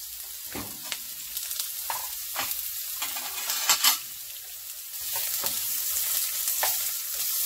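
Chopped onion sizzling in hot oil in a frying pan, stirred with a wooden spatula that scrapes and taps against the pan. The sizzle grows louder about five seconds in.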